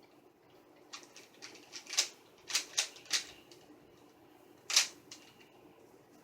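A 3x3 speed cube being turned fast by hand, its plastic layers clacking into place in irregular sharp clicks: a quick run of turns between one and three seconds in, then a single loud click near the five-second mark.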